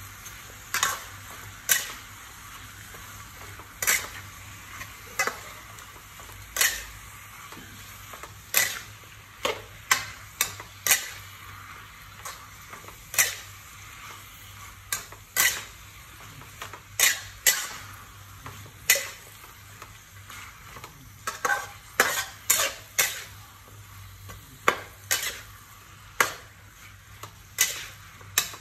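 Cabbage and bok choy sizzling in a hot pan as they are stir-fried, with sharp, irregular clinks and scrapes of a metal spatula against the pan about once a second.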